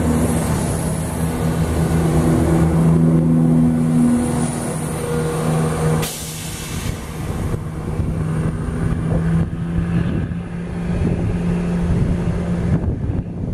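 Chiltern Railways Class 165 diesel multiple unit moving along the platform and drawing away, its underfloor diesel engines droning steadily with a rumble of wheels on rail. A single sharp click about six seconds in, after which the sound is slightly quieter.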